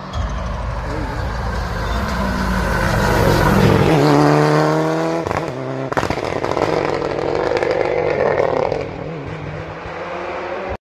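Rally car coming past at full throttle. The engine revs up, rising in pitch, then breaks off sharply about halfway through at a gear change before pulling again and fading as the car goes away.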